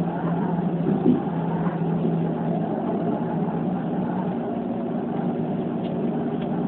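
Keikyu 2100-series electric train running along the line, heard from inside the front car: a steady running rumble with a low hum that stops about four seconds in. The sound is thin and dull, recorded on a flip phone.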